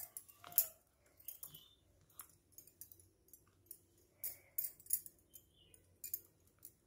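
A metal spoon scraping and tapping as a crumbly filling is dropped onto rolled dough in a plastic karanji mould, then fingers pressing and spreading it: a few short, scratchy clicks and scrapes at irregular intervals.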